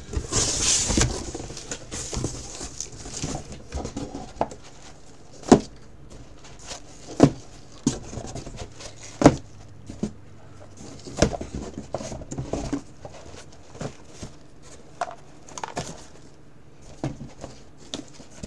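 Cardboard boxes being handled: scattered taps and knocks, with a brief rustle in the first second or so.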